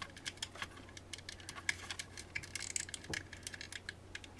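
A pry tool clicking and scraping against a handheld multimeter's plastic case as it prises at the case's little plastic tabs: many small, irregular clicks.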